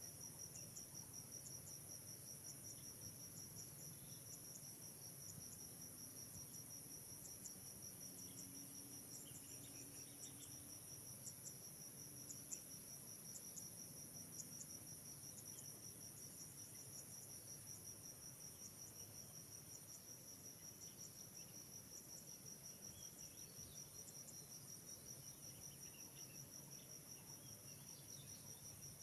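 Faint, steady chorus of insects, crickets by its sound, a continuous high-pitched trilling with a few faint short chirps now and then.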